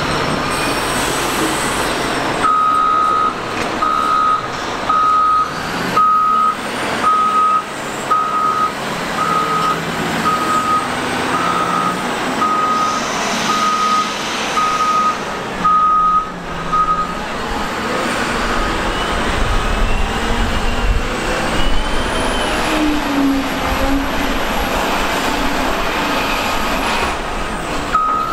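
Cat 972M wheel loader working, its reversing alarm beeping steadily at one pitch, the beeps under a second apart, then stopping for several seconds and starting again near the end.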